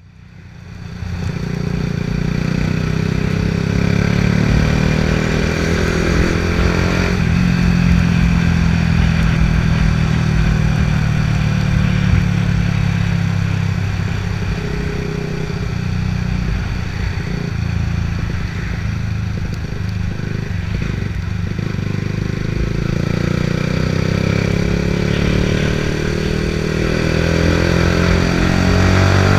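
Yamaha R125's single-cylinder 125 cc four-stroke engine running through a Scorpion exhaust with the dB killer removed, revs shifting up and down and climbing near the end, with light crackles and pops on the exhaust.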